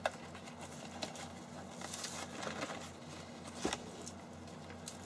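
Bubble wrap around a lamp tube rustling as it is handled, with a few light clicks, over a steady low hum.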